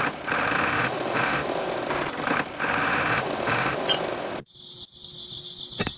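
Small electric motor of a homemade miniature toy tractor whirring, with a slightly uneven pulse, then cutting off suddenly about four and a half seconds in.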